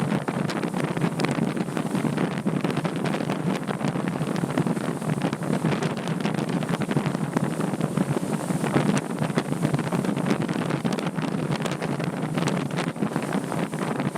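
Wind buffeting the camera microphone on a moving boat, a steady rushing noise full of rapid small crackles, with no clear engine tone.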